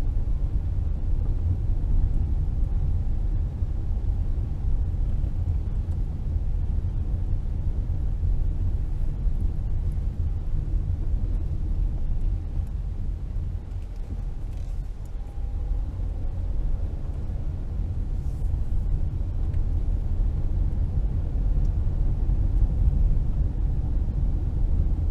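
Car driving slowly on a paved road, heard from inside the cabin: a steady low road and engine rumble that eases off briefly about midway.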